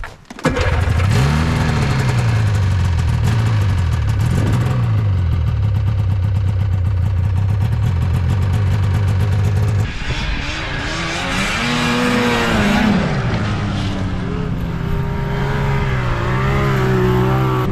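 Snowmobile engine running hard, its pitch rising and falling again and again as the throttle is worked. The sound changes abruptly about ten seconds in, after which the engine keeps revving up and down.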